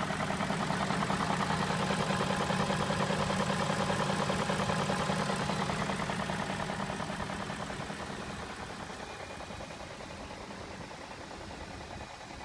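BMW M62B44 4.4-litre V8 idling with a fast, even rattling knock, which the owner puts down to the VANOS variable valve timing units. It grows gradually quieter over the second half.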